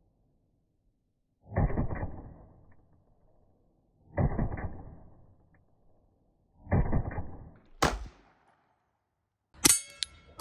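Beretta M9 9mm pistol fired three times at an even pace, about two and a half seconds apart, each shot echoing away. A sharp click comes just before the eighth second, and near the end a few quick ringing metallic cracks sound.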